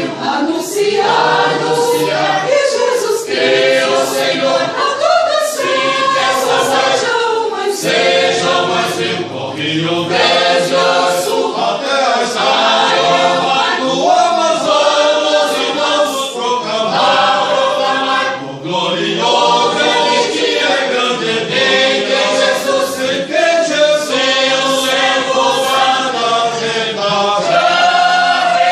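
Church choir singing a hymn in Portuguese: many voices together, held notes changing pitch every second or so, with crisp consonants throughout.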